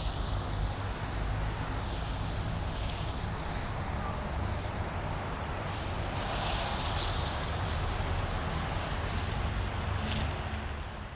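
Ambience recording of a steady low rumble under a wash of wind-like noise, with a few brighter rushes, starting to fade out at the very end.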